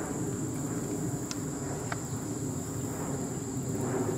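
Insects buzzing steadily in the surrounding brush, one unbroken high-pitched tone over a low background rumble, with a couple of faint clicks about a second and two seconds in.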